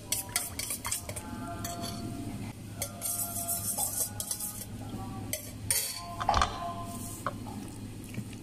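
Spoons stirring, scraping and knocking against stainless steel mixing bowls: first a metal spoon through tomato sauce, then a wooden spoon working a wet rice and ground beef filling. Many clicks and knocks, some leaving the bowl ringing briefly, with the loudest knocks about six seconds in.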